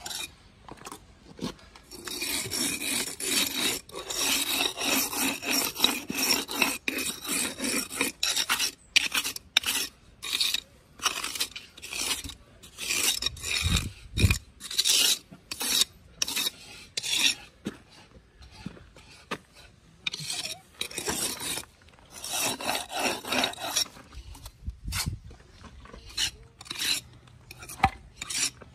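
A steel jointing tool and trowel scraping and rubbing along the fresh mortar joints of a concrete block wall, finishing the joints. It goes in long continuous scraping runs, about two seconds in and again after twenty seconds, with many short quick strokes between.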